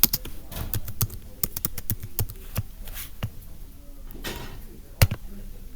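Computer keyboard typing: a run of irregular key clicks, with one louder click near the end.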